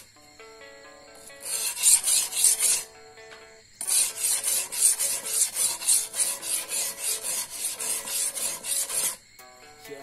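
A machete blade being sharpened on a whetstone: quick back-and-forth scraping strokes, a short run about a second and a half in, then after a pause a long even run of about three to four strokes a second that stops near the end.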